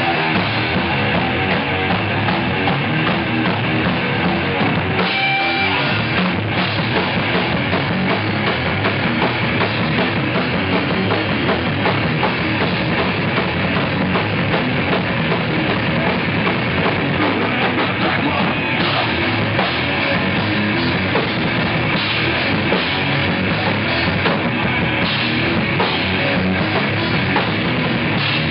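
Live rock band playing loudly and without a break: electric guitar, bass guitar and a pounding drum kit.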